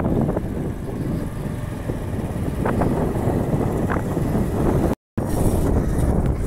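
Steady low rumble of passing vehicles mixed with wind buffeting the microphone; the sound cuts out completely for a moment about five seconds in.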